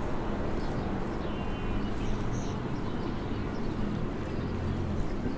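Urban outdoor ambience: a steady low hum under a constant wash of background noise, with faint bird chirps here and there and a short high trill about one and a half seconds in.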